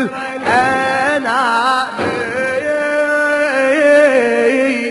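A man singing a latmiya, an Arabic Shia lamentation chant, in long held notes with wavering melismatic ornaments.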